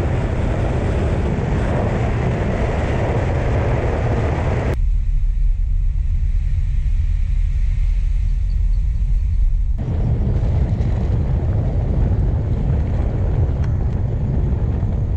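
Steady low rumble and wind noise of a moving vehicle. The higher hiss drops away suddenly about five seconds in, leaving only the deep rumble for about five seconds, then comes back.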